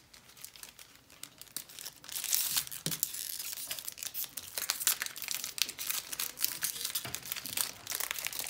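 Trading card pack wrappers being torn open and crinkled by hand, a dense crackling that starts about two seconds in and keeps going.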